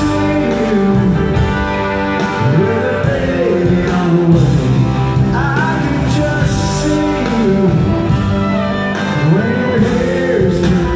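Live country band playing a slow ballad, with singing and guitar over bass and drums, recorded from far back in the audience of a large arena.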